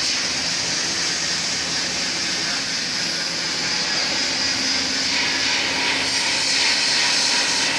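Steady hiss and hum of a robotic plasma beam-coping machine between cuts, its torch arc off while the torch head repositions over the steel beam.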